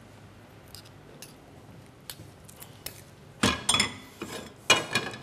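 Metal pots and a cooking utensil clattering on a gas hob: a few faint clicks, then two loud metallic clanks with a ringing tail about a second apart near the end.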